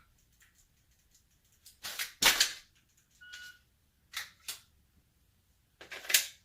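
Sharp mechanical clacks of a pistol and gear being handled during dry-fire practice, with a loud pair of clacks about two seconds in, two lighter ones past the middle and another loud burst near the end.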